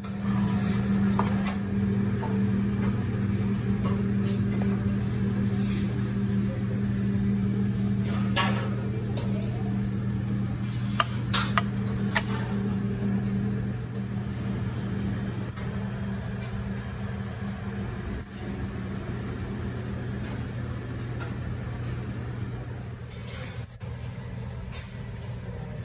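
Steady low mechanical hum with a few sharp clicks about halfway through.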